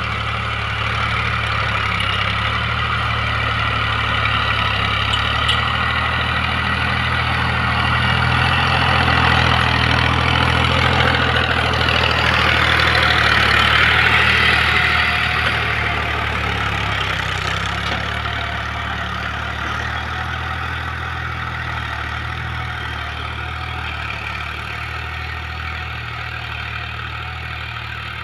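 Al-Ghazi tractor's diesel engine running steadily under load while pulling a tine cultivator through the soil. It grows louder as the tractor passes close, about halfway through, then fades as it moves away.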